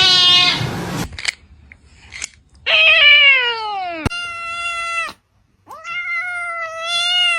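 Cat meowing: four drawn-out meows, the second falling in pitch and the last the longest, at about two seconds.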